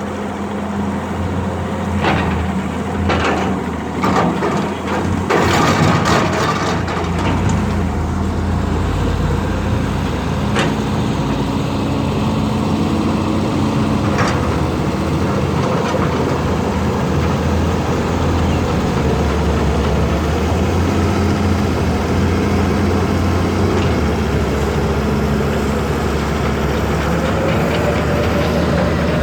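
Diesel engines of excavators running steadily while digging, with several sharp knocks in the first few seconds and a couple more later.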